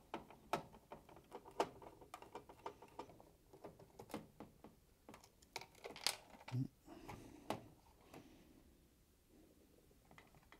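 Quiet, irregular clicks and taps of a Phillips screwdriver undoing screws in a plastic PCB housing and of the housing being handled, with one duller knock a little past halfway; the clicks stop about eight seconds in.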